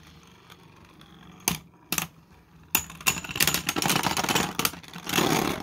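Beyblade Burst tops in a plastic stadium at the end of a stamina battle: a couple of single clicks, then from about three seconds in a rapid clatter as the wobbling top, losing spin, rattles against the other top and the stadium floor.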